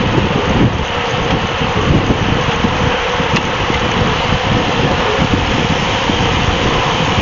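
Steady rush of wind over a bike-mounted action camera's microphone, mixed with the road noise of racing bicycles' tyres, while riding at speed in a peloton.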